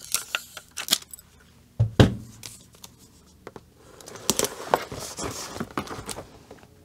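A handheld tape dispenser and hands working on a cardboard box: a few sharp clicks at the start, a thump on the box about two seconds in, then rustling and small taps as a picture is pressed onto the box.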